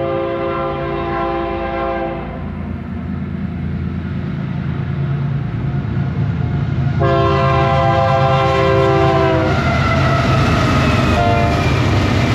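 An approaching diesel freight locomotive sounds its air horn: a long chord-like blast, a second long blast about seven seconds in and a short toot near the end. This is the long-long-short opening of a grade-crossing signal. The low rumble of the locomotives' engines grows louder as the train nears.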